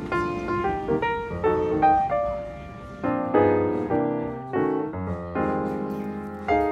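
Background piano music: single struck notes and chords, each fading away after it is struck.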